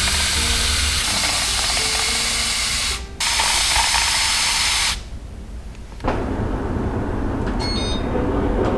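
A steady hissing spray in two stretches, about three seconds and then two seconds long, with a brief break between. After a pause a quieter rushing noise follows, with a few short high beeps near the end.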